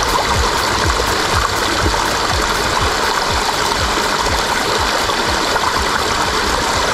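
A small rocky brook running steadily, with water spilling over a little cascade into a pool.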